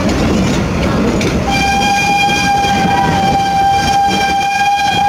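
Passenger coaches rolling past on the rails, then about a second and a half in a steam locomotive's whistle sounds one long, steady blast at a single pitch.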